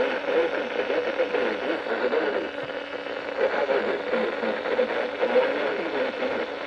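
Noisy radio reception: steady static hiss with a faint, unintelligible wavering voice-like sound underneath.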